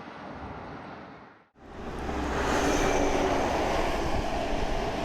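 Road traffic: a steady vehicle rumble with a faint whine. It sets in after a sudden cut about a second and a half in.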